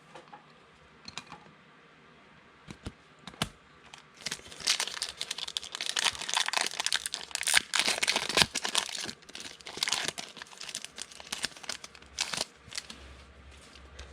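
A trading-card pack's wrapper being crinkled and torn open, with scattered crackles at first and a dense stretch of crinkling in the middle.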